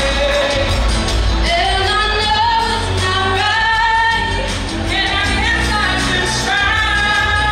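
Two female singers performing a duet through microphones, holding long notes with some rising slides, over instrumental accompaniment with a steady bass.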